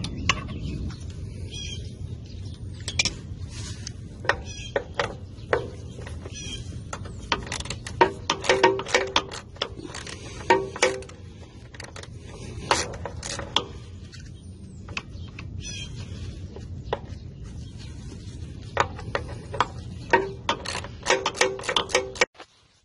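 Hand ratchet clicking in short runs, with clinks of the socket on metal, as the bolts holding a mower's PTO clutch to the frame are turned out.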